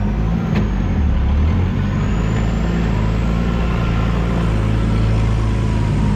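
Off-road 4x4's engine running at low revs while the vehicle creeps and turns over grass, heard from inside the cab: a steady low drone that shifts slightly in pitch.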